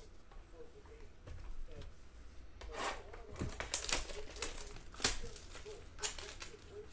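Clear plastic wrap crinkling and tearing as a trading card box is unwrapped by hand, a run of sharp crackles starting about two and a half seconds in.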